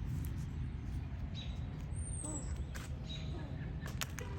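Outdoor background with a steady low rumble, a brief high falling chirp about two seconds in, and a few faint clicks.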